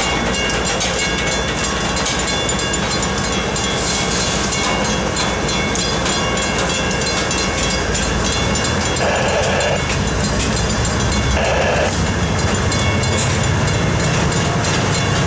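Loaded freight train of steel-slab cars rolling by at speed: a steady rumble of wheels on rail with some clickety-clack, and steady high ringing tones over it.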